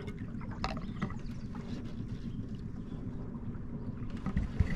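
Wind rumbling on the microphone over water lapping against a small boat, with a few light knocks about a second in and again near the end.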